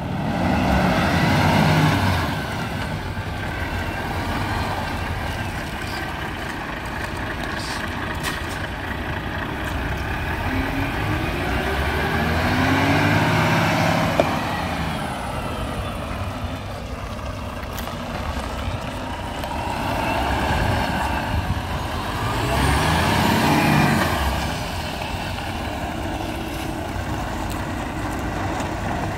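Heavy diesel truck engine running steadily, swelling and rising in pitch three times.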